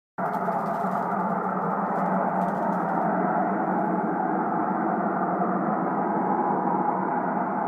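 An unexplained loud, steady drone of several tones sounding together, recorded outdoors on a phone, cutting in abruptly; it is one of the mystery noises reported in 2014. Faint crackles sound over it during the first few seconds.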